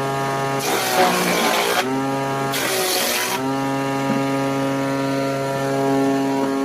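A woodworking machine's motor running at a steady pitch, dipping in pitch under a hiss of cutting twice in the first few seconds as wood is fed through, then running free.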